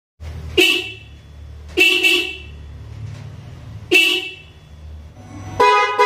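Suzuki Splash's stock car horn honking in short blasts: one, a quick double, then one more, over a low steady hum. Near the end a newly fitted pair of Hella snail-type horns sounds, louder and fuller in tone, held past the end.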